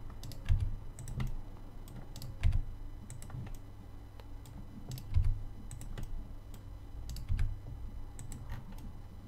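Irregular clicking of a computer mouse and keyboard, with a few louder dull thumps, over a low steady hum.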